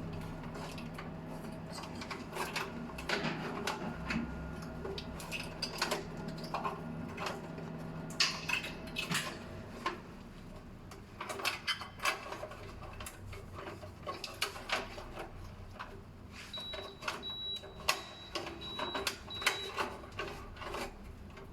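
Irregular small clicks, taps and rattles of hands working on wiring and terminals at a fire alarm panel. A faint hum stops about nine seconds in, and a few short high beeps sound near the end.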